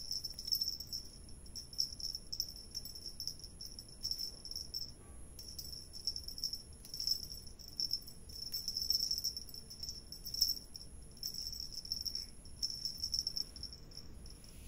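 A high-pitched, insect-like trill that runs in bouts of a second or two with short breaks, with scattered light clicks and ticks over it.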